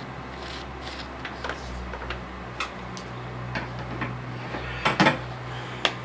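Light clicks and knocks of a PVC pipe being handled, with the loudest knocks about five seconds in and again near the end, over a steady low hum.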